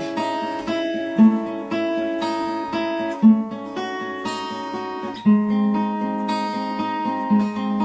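Acoustic guitar playing a plucked chord accompaniment on its own, with a strong low note struck about every two seconds.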